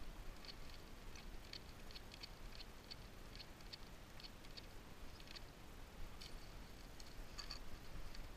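Faint, scattered light clicks and ticks, about two a second and irregular, as hands work the plastic parts of an RC monster truck's front end to strip it down.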